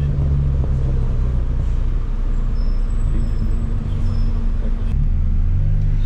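Car engine and road noise heard from inside the cabin while driving slowly: a steady low rumble with an engine hum that eases off about two seconds in and comes back strongly near the end.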